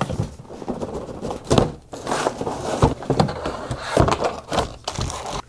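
Cardboard box being opened and handled: the lid coming off, cardboard scraping and rustling, with several dull knocks against the table.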